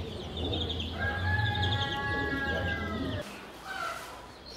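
Chicks peeping in a brooder, with a long, steady call of several tones over them from about one to three seconds in. A low hum cuts off a little after three seconds.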